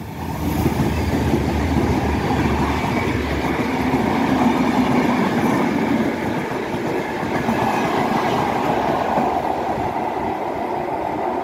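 Two Renfe class 334 diesel locomotives passing close by, their deep engine rumble strongest in the first few seconds, followed by a long train of historic wooden carriages rolling steadily past on the rails.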